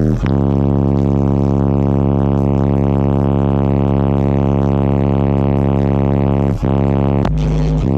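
Car audio subwoofer system playing bass-heavy music: a long held low bass note with overtones, briefly dipping about a quarter second in and turning choppy in the last second.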